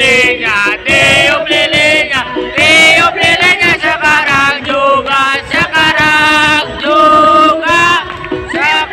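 A song: sung voices over music, continuous and loud.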